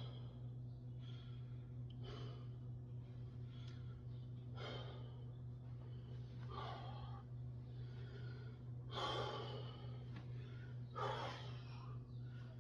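A man breathing hard and forcefully through a heavy weightlifting set, with sharp exhalations every second or two. The two loudest come about nine and eleven seconds in.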